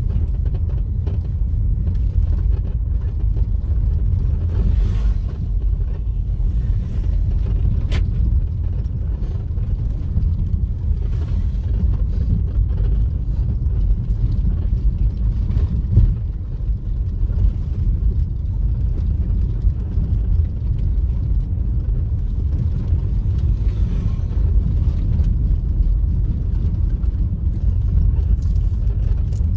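Steady low rumble of a car driving along a road, with a single short click about eight seconds in.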